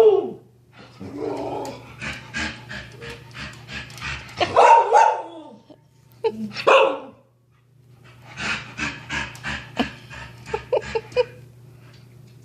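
Excited dog panting rapidly in quick, even pulses, with two louder barks about four and a half and six and a half seconds in. The dog is worked up at the sight of cats on a TV screen.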